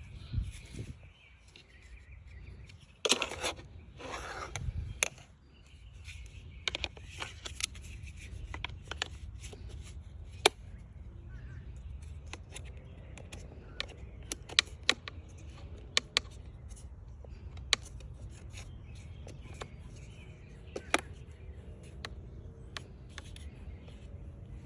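Clicks, taps and a few short scraping rubs from hands working on the plastic planter and its supports, scattered irregularly over a steady low rumble.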